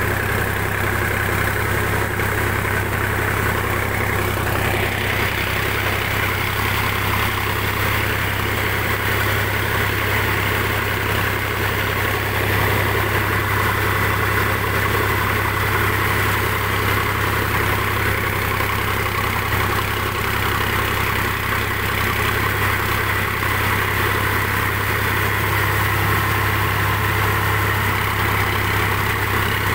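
Sonalika tractor's diesel engine running steadily, heard from the driver's seat, a constant low hum with no change in speed.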